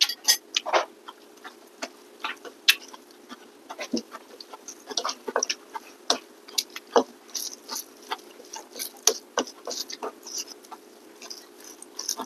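Close-up eating sounds: chewing and mouth smacks, with fingers mixing rice on ceramic plates, an irregular patter of small clicks and smacks.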